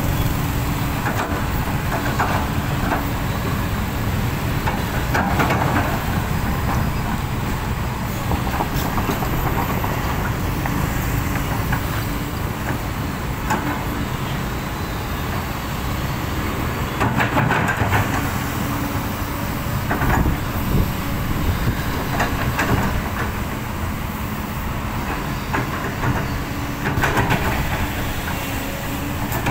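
Heavy diesel construction machinery running steadily, with intermittent metallic clanks and knocks of the working equipment.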